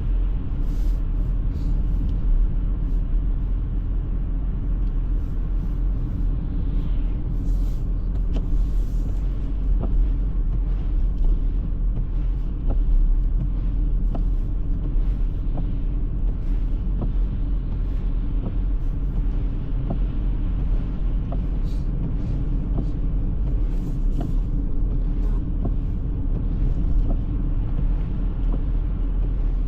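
Car driving at a steady pace: a continuous low rumble of engine and road noise, with faint ticks here and there.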